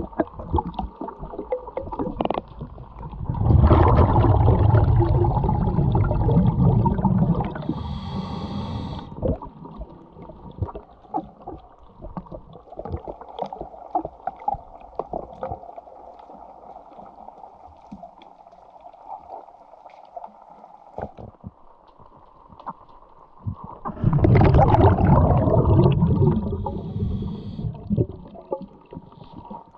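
Underwater, a scuba diver's exhaled breath bubbles loudly out of the regulator twice, each time followed by a brief hiss, with faint clicks and scraping against the hull in between.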